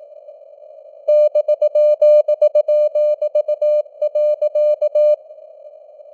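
Morse code (CW) sent at 18 words per minute as a beeping mid-pitched tone in short dots and longer dashes, over the hiss of simulated radio noise. The keying starts about a second in and stops about a second before the end, leaving only the hiss.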